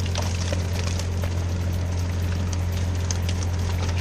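A steady, low mechanical hum, with scattered light ticks over it.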